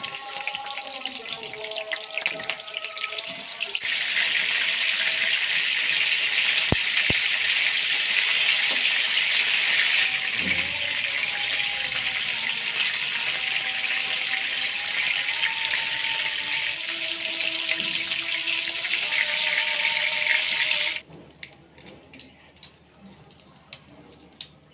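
Rohu fish pieces sizzling as they fry in hot oil in a nonstick pan. The sizzle is quieter and crackly at first, grows to a loud steady hiss about four seconds in, and cuts off abruptly near the end.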